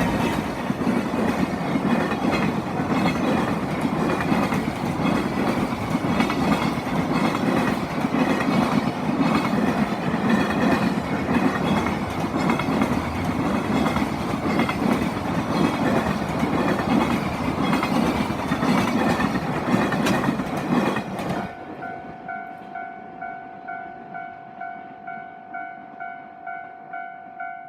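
Freight train running through a level crossing: a long, loud rush of wheels with the clickety-clack of wagons passing over the rail joints, ending abruptly about 21 seconds in. After it the level crossing's warning bell is heard on its own, a ringing ding repeated a little over twice a second.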